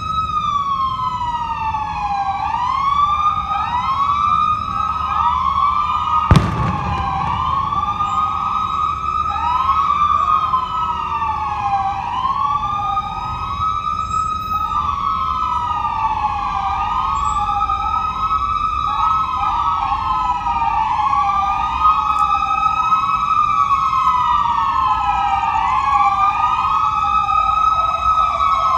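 Several CHP and sheriff's patrol car sirens wailing at once, their slow rising and falling sweeps overlapping out of step. A single sharp thump about six seconds in.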